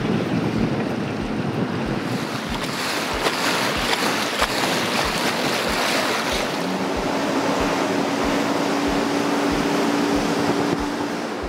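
Boat under way on open water: wind buffeting the microphone and water rushing and splashing, with a regular low thudding. A steady hum joins about seven seconds in.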